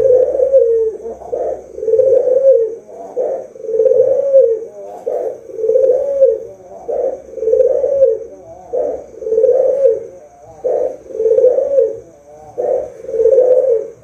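Caged white Barbary dove (puter) cooing loudly and repeatedly, a short coo followed by a longer rolling coo, the pair coming about every two seconds, about seven times.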